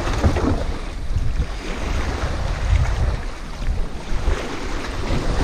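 Wind buffeting the microphone with a low rumble, over small waves washing onto the shore.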